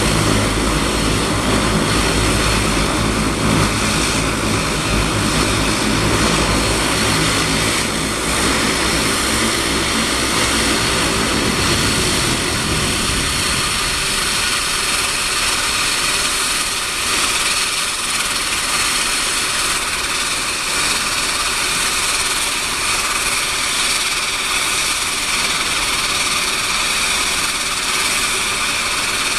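Canadair CL-415 water bomber's twin turboprop engines running on the ground: a low propeller drone under a steady turbine whine. The low drone drops away about twelve seconds in, and the whine continues.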